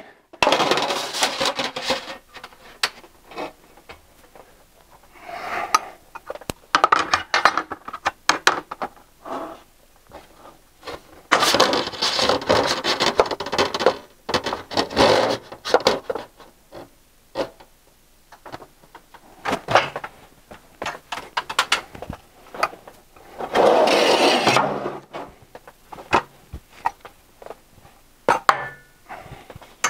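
Sheet-metal trim being handled and bent on a hand-operated bending brake: intermittent clanks and knocks of the brake's parts, with several louder rattling, scraping stretches of about a second each as the thin metal sheet is moved and flexed.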